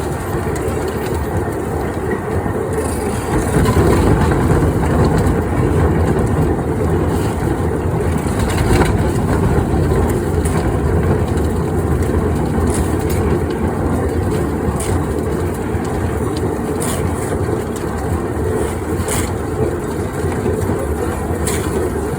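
Concrete mixer machine running with a steady, heavy mechanical rumble, with a few sharp clanks now and then.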